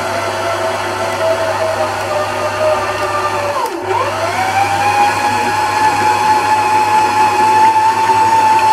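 Electric stand mixer running, its motor whining steadily as it kneads dough in a steel bowl. About four seconds in the whine dips sharply in pitch, then comes back up and settles into a higher, steady whine.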